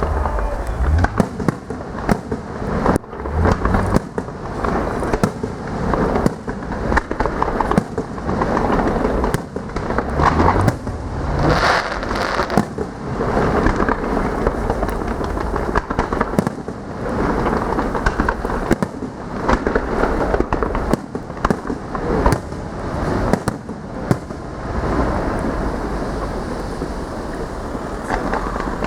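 Fireworks display: a dense, unbroken barrage of bangs and crackling shells, with deep booms mixed in.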